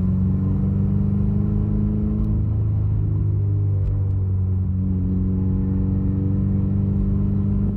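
2017 Subaru WRX's turbocharged 2.0-litre flat-four engine running steadily, its pitch dipping a little about two to three seconds in and coming back up.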